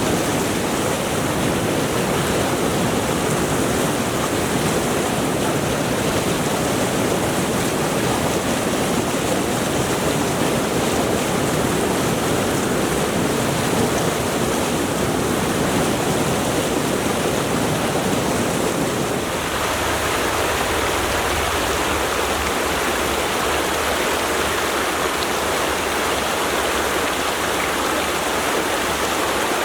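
Mountain stream rushing steadily over rocks. About two-thirds of the way through, the sound changes to a brighter, higher rush with less low rumble, as if from another stretch of the stream.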